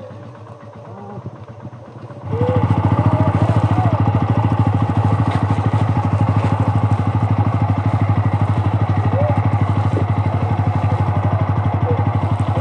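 Motorcycle engine running steadily with an even, fast throb, coming in abruptly about two seconds in after a quieter start.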